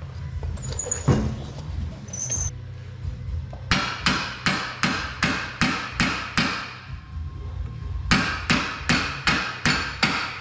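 Steel hammer striking metal in two quick runs of ringing blows, about three a second, with a short pause between, driving a seized cotter pin out of an ATV's rear axle nut.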